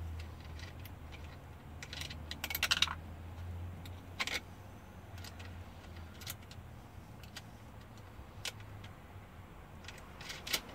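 Small metal clicks and clinks of a cable lug and terminal hardware being handled and fastened onto a battery post as a ground cable is connected. A small cluster comes about two to three seconds in, with single clicks later and near the end.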